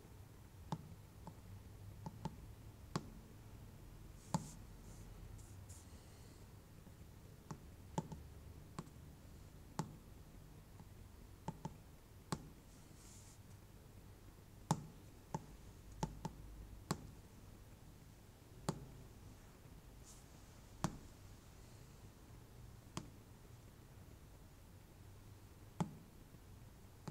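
Single button clicks at irregular intervals, about twenty in all, as values are keyed into a CNC plasma cutter's control panel, over a faint low hum.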